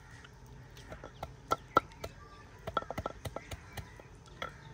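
Ginger and garlic being pounded with a pestle in a mortar: light, irregular knocks that come closer together past the middle.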